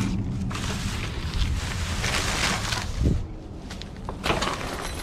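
Wind rumbling on the microphone and a plastic bag rustling, with a dull thump about three seconds in.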